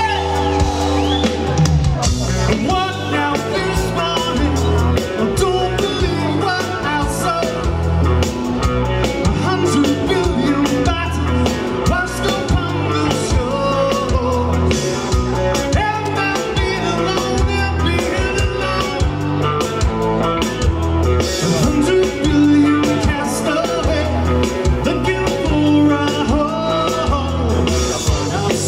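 Live rock band playing: a man sings lead over acoustic guitar, electric guitar, bass guitar and drum kit, with a steady driving beat.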